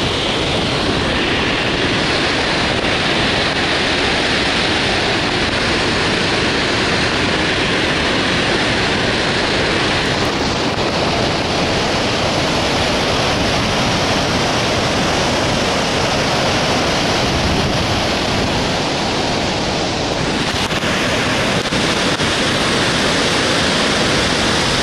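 Victoria Falls on the Zambezi thundering: a loud, steady rush of falling water, with wind buffeting the microphone in the spray. Its tone shifts slightly a few times.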